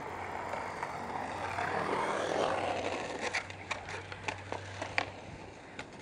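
Skateboard wheels rolling on concrete: a low rolling rumble that swells to its loudest about two seconds in as a skater passes close, then fades, followed by several sharp clacks of boards hitting the concrete.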